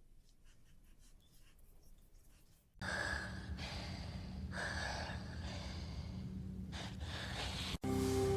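Heavy breathing and gasps that start suddenly about three seconds in, after faint clicking, and go in surges over a low steady hum until they cut off abruptly near the end.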